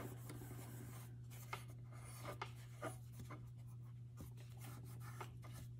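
Faint, irregular rubbing and scrubbing strokes of a cleaning pad on the steel parts of a Colt Pre-Woodsman pistol, lifting loose surface rust with WD-40, over a steady low hum.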